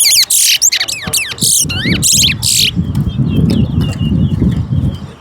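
Towa-towa (chestnut-bellied seed finch) singing a loud, rapid warbling song of quick rising and falling whistled notes, which stops about two and a half seconds in. Low voices murmur and faint chirps follow.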